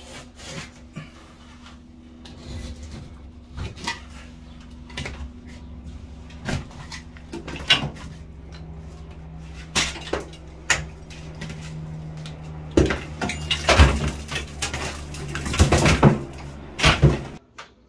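Utility knife scraping and cutting through a water-damaged drywall ceiling, with intermittent cracks and scrapes. Near the end the soggy drywall is pulled down in a burst of louder tearing, cracking and crumbling that stops abruptly. A steady low hum runs underneath.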